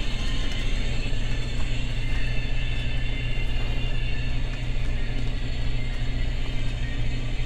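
Residential furnace running: a steady low rumble and hum with even noise over it.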